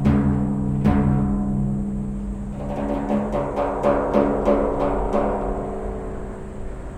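Frame drum struck: two firm hits about a second apart, then a quick run of lighter taps. Its deep tone and overtones ring on in the tunnel's reverberation and fade away near the end.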